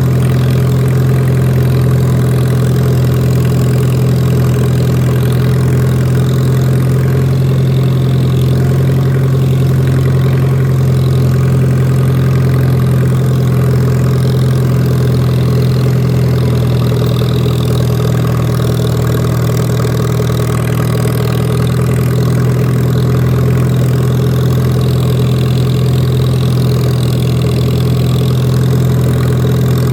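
Lawn mower engine running steadily at a constant speed while cutting grass, a loud, even hum close to the microphone.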